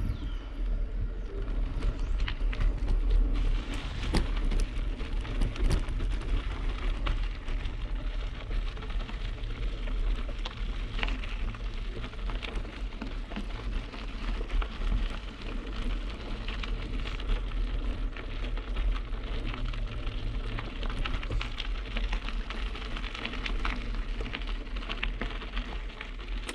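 Bicycle tyres rolling over loose gravel and dirt, a dense steady crackle of small stones, with wind rumbling on the microphone.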